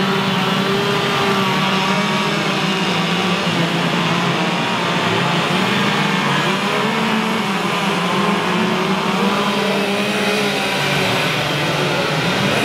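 Several gasoline chainsaws running at once while carving wood, their engines revving up and down against each other in a steady, loud din.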